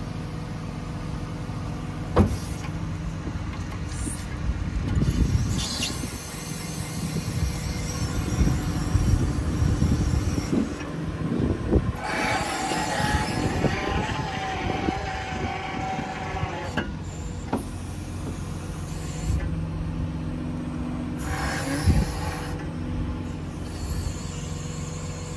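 Diesel truck engine (6.7 Cummins inline-six) running steadily under the boom's hydraulics while the Altec AT37G boom is worked from the lower controls. Hydraulic flow hisses with a held whine for several seconds at a time as the control levers are moved, and there are two sharp clunks, one about two seconds in and one near the end.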